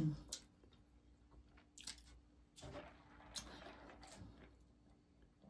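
Faint chewing of food close to the microphone, with a few soft mouth clicks and smacks.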